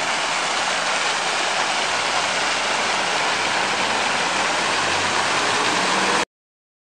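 Fountain jets splashing into a shallow pool, a steady hiss of falling water, with a faint low hum of street traffic underneath. The sound cuts off abruptly about six seconds in.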